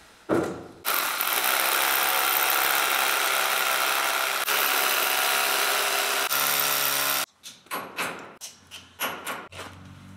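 Electric drill boring holes into a concrete ceiling for wall plugs. It runs steadily for about six seconds with a brief break partway through, then stops. A few short knocks and clicks follow.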